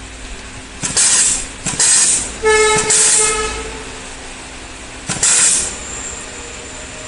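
Pneumatic wire stripping and terminal crimping machine cycling: four sharp bursts of compressed-air exhaust from its valves and cylinders, each opening with a click. The third and longest burst, about two and a half seconds in, carries a steady pitched tone like a toot.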